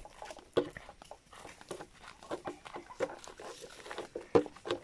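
Irregular footsteps crunching over dry leaves and twigs, about two a second, mixed with a few short animal calls from the farmyard.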